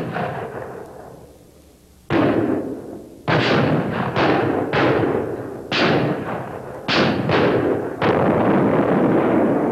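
A ragged volley of gunshot sound effects, as in a 21-gun salute: about eight shots at uneven intervals, starting about two seconds in, each with a long echoing tail.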